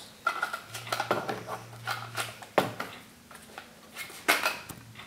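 Foam darts being pressed one by one into a plastic Nerf dart clip: a run of light plastic clicks and taps, the sharpest about halfway through and again near the end.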